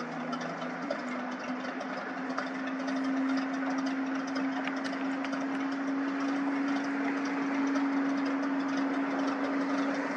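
Single-engine floatplane's piston engine and propeller running at low power as it taxis slowly on the water: a steady drone with one strong low tone, getting a little louder about three seconds in.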